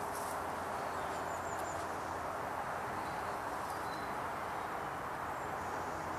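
Woodland ambience: a steady outdoor background rush with a few faint, high bird chirps, the first about a second in.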